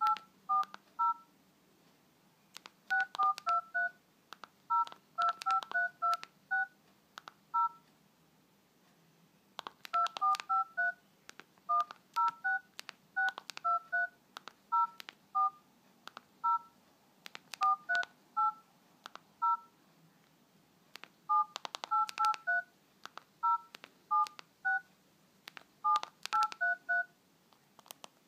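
Keypad tones of a basic mobile phone as a text message is typed: a short two-note beep with a click for each key press. The presses come in quick runs, several taps on the same key for each letter, with pauses of a second or two between runs.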